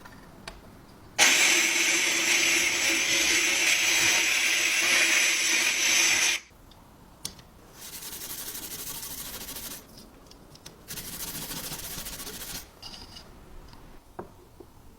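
A power tool sanding the metal of a gas cylinder in a loud, steady run of about five seconds, then two quieter, shorter passes.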